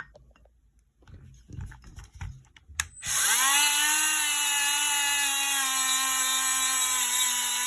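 A few light handling clicks, then about three seconds in a Dremel rotary tool fitted with a radial bristle wheel switches on, whines quickly up to speed and runs steadily. It is being used to polish white scald spots off overheated soft solder.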